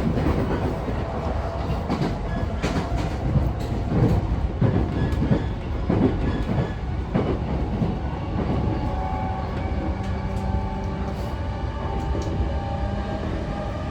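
Interior running noise of a JR East E233-5000 series EMU motor car at speed: wheels knocking over rail joints through the first half. About halfway in, a steady multi-tone hum from the traction motors and their Mitsubishi IGBT inverter comes up under the rumble.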